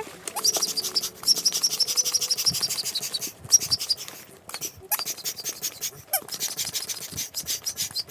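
Hand air pump inflating a yoga ball: a rapid, high-pitched squeaky chatter in stretches of one to two seconds, with short breaks between pump strokes.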